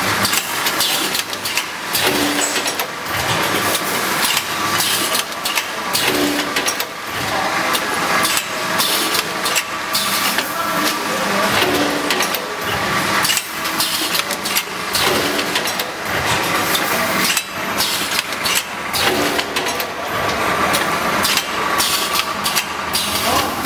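Automatic vacuum brick-pack packaging machine running: a steady mechanical din with sharp clacks and a hiss running through it, going round in a cycle that repeats every few seconds.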